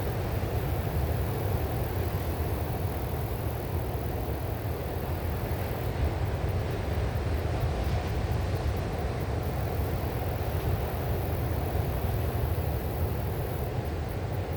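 Strong wind and ocean surf: a steady, rumbling rush, heaviest in the low end, with no separate wave crashes standing out.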